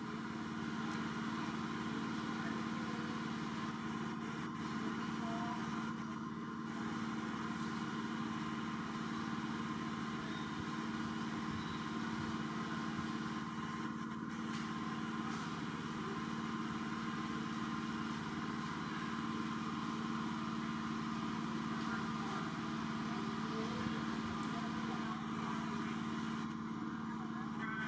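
Small motorcycle engine idling steadily, a constant hum that does not change in pitch.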